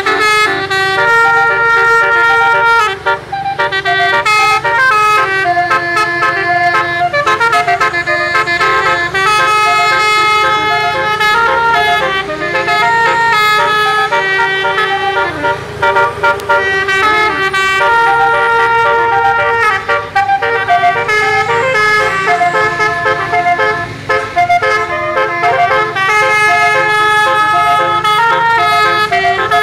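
Indonesian bus 'telolet' musical air horn, sounded from its roof-mounted trumpets, playing a long run of melodies: held notes alternate with quick runs of changing notes. A low rumble runs beneath.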